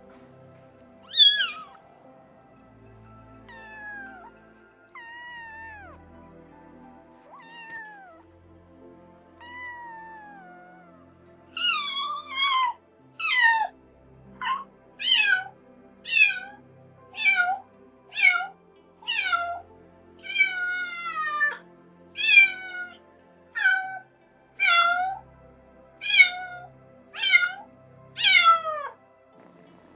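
Cat meowing: one loud, high meow near the start and several softer, falling meows, then about halfway through an insistent run of loud meows, roughly one a second.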